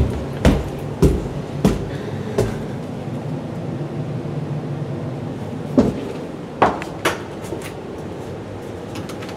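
Footsteps climbing carpeted stairs: a run of dull thumps about one every half second or so, pausing, then a few more steps near the end, over a steady low hum.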